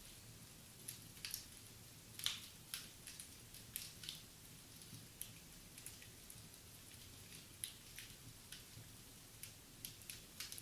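Wood fire crackling in a fireplace: irregular small pops and snaps, with one louder crack about two seconds in.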